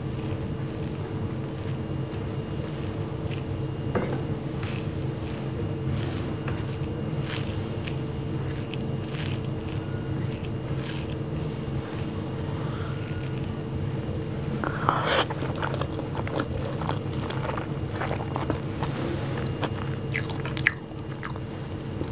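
Close-miked chewing of rice and mashed vegetable bhorta, in a steady rhythm about twice a second, with the soft squish and clicks of fingers mixing rice on a plate. A steady low hum runs underneath.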